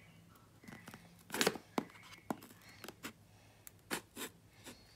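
Scissors cutting at the seal of a small cardboard box: a faint, scattered series of clicks and scrapes, a little louder about one and a half seconds in and again near the end.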